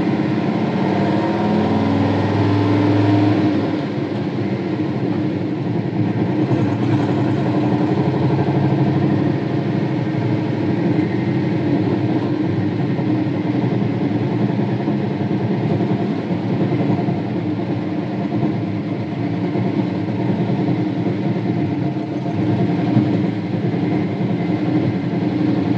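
1962 Ford F-350 engine running as the truck is driven, heard from inside the cab. The engine is a little louder for the first few seconds, then runs steadily.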